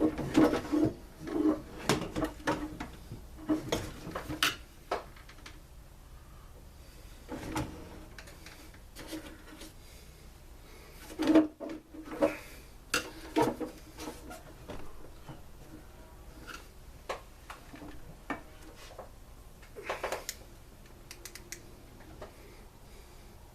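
Tools and parts knocking and clattering as a backpack blower is taken apart by hand: a quick run of knocks in the first few seconds, then scattered single clunks.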